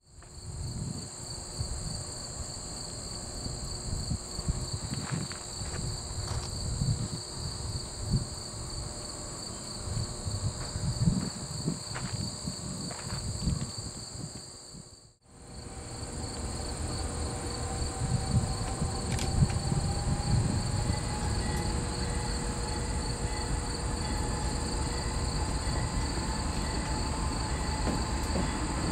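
Insects chirring steadily in a high, pulsing drone, over the low rumble of distant GE C40-8 diesel locomotives approaching. The sound drops out briefly about halfway through.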